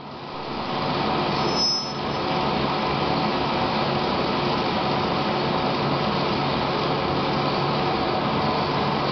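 Graffenstaden 1720 1L vertical turning lathe running, a steady machine hum and drive noise, with a brief high whistle about a second in.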